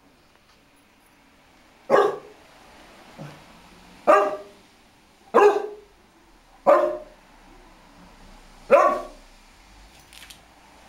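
A dog barking: five loud, single barks spaced one to two seconds apart, with a faint one between the first two.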